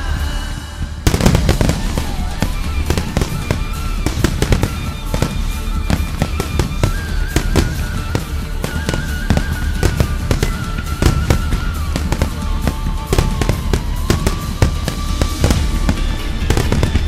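Barrage of aerial firework shells bursting in rapid succession: dense, overlapping booms and crackles that get much heavier about a second in.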